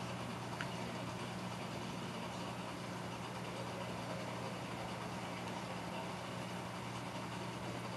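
Reef aquarium pumps running: a steady low hum under an even hiss.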